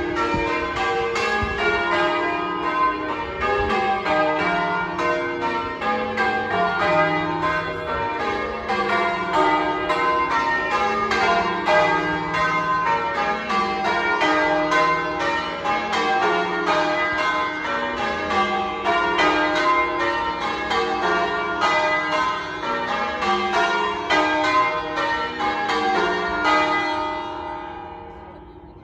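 Church bells in English change ringing: a rapid, continuous, evenly spaced sequence of strikes from the tower's ring of bells. The ringing stops about 27 seconds in and the last strikes ring away.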